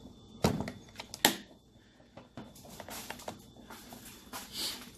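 Two sharp knocks about a second apart, with a few fainter clicks and a brief rustle near the end.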